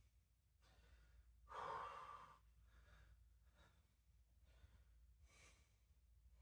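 Faint heavy breathing from a person exercising, with a louder exhale about one and a half seconds in.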